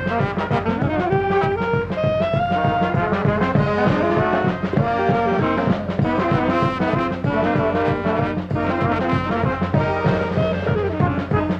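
Band music led by brass, trombones and trumpets playing a stepping melody over a steady beat.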